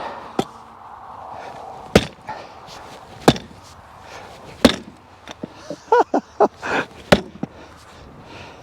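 Sharp single knocks of a log of firewood being struck, about five of them spaced a second or more apart, with a few short squeaks in between. There is no continuous jackhammer rattle.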